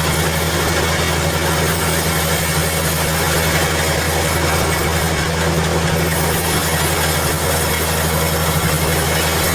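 Sawmill machinery running steadily, a low, even hum with a constant broad noise over it.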